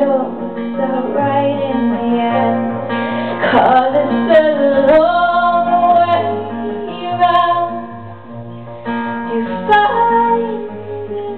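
A woman singing long, held notes over two acoustic guitars in a live performance of a folk-pop song.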